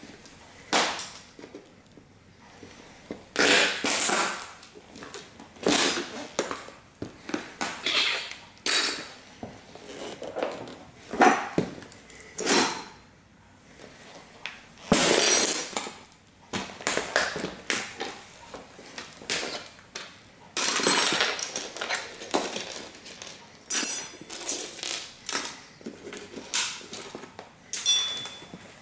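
Chunky platform-soled leather boots stomping and grinding on the broken pieces of a model car: irregular crunches, scrapes and rattling of crushed metal, plastic and clear shards, coming every second or two with short pauses between.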